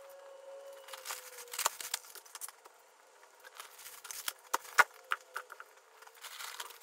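Groceries being unpacked: reusable shopping bags rustling and items knocking as they are set on a kitchen bench, with one sharper knock a little under five seconds in.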